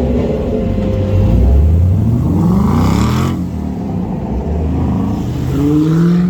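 Cars with loud exhausts accelerating past in street traffic, the engine pitch climbing as they rev, once about two seconds in and again near the end.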